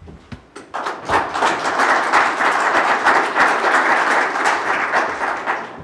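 Audience applauding, a dense patter of many hands clapping that builds about a second in and dies away near the end.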